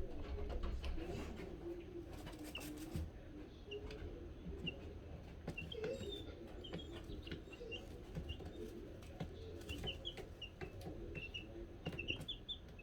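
Two-week-old chicks peeping, with many short high cheeps that come thicker near the end, among scattered scratching clicks and rustles.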